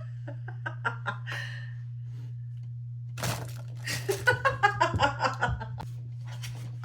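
A woman laughing in a run of short pulses for a couple of seconds, after a few light clicks of items being handled. A steady low hum runs underneath.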